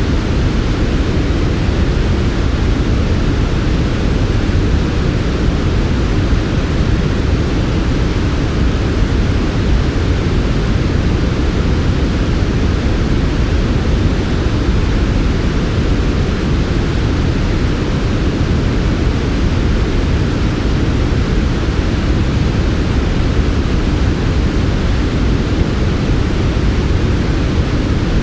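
Smoothed white noise for sleep: a steady, unchanging hiss with most of its weight in a deep low rumble and a softer top.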